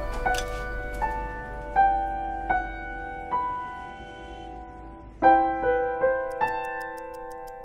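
Soft piano music: single notes struck one at a time and left to ring, with a fuller chord about five seconds in. Faint, quick, even ticks come in near the end.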